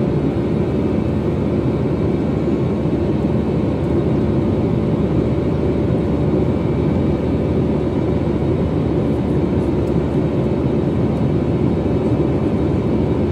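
An airliner's jet engines and the airflow, heard inside the cabin during the climb after takeoff: a steady low roar with a constant hum running through it.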